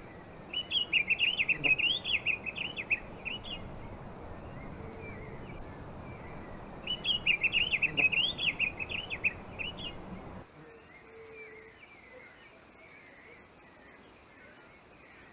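Diademed tanager singing: two rapid warbling phrases of about three seconds each, several seconds apart, over a steady background hiss that cuts off suddenly near the end, leaving only faint chirps from further off.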